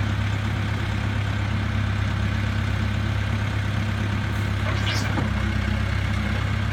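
Case 580N backhoe loader's diesel engine idling steadily, with a brief rising squeak about five seconds in.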